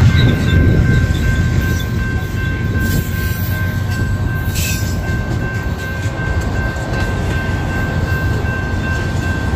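Double-stack intermodal freight cars rolling past at a grade crossing: a steady rumble of wheels on rail, with a steady high thin tone over it.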